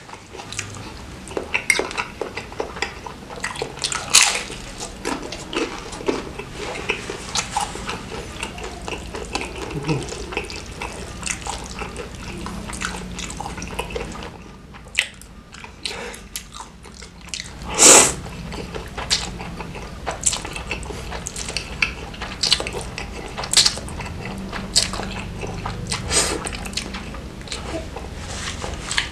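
Close-miked eating of meatballs and noodles in spicy broth: wet chewing, smacking and slurping sounds coming in quick irregular clicks, with one longer, louder wet sound about two-thirds of the way through.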